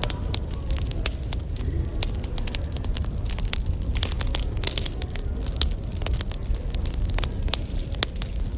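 Wood fire crackling: a dense, irregular run of sharp pops and snaps over a low steady rumble.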